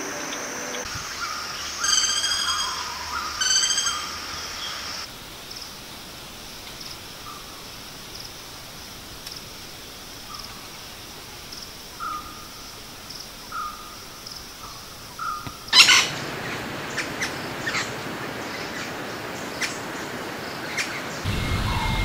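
Flameback woodpecker calling: two harsh, rattling calls about two and three and a half seconds in. Later come a few soft short notes, then a sharp knock and scattered lighter taps.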